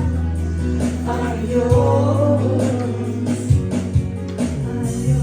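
Live gospel worship band playing the closing bars of the song, with held bass notes changing every second or two and some singing over it.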